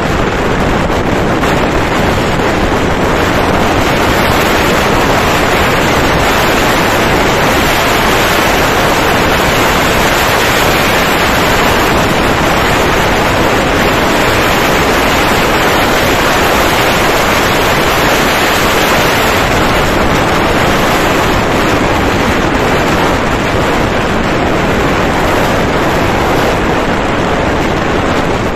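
Steady, loud wind noise buffeting the microphone of a motorcycle moving at road speed, an even rush with no engine note or other sound standing out.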